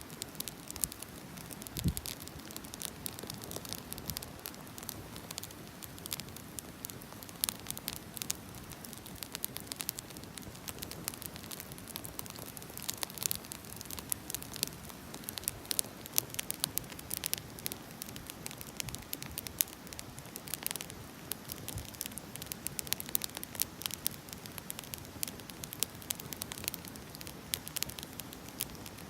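Wood fire burning, firewood crackling with many small irregular pops and snaps over a steady low hiss, with one heavier pop or knock about two seconds in.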